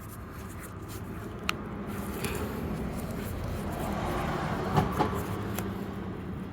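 A cutting tool working at the rubber tail of a tire-repair plug: a few sharp clicks and a scraping rustle as it tries to snip the plug off, over a steady low hum.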